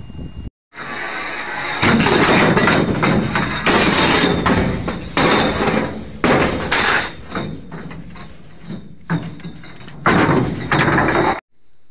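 Galvanized steel pipes being unloaded from a lorry bed, clattering and scraping against one another in a continuous jumble of knocks. It starts about a second in, grows louder in surges, and cuts off suddenly near the end.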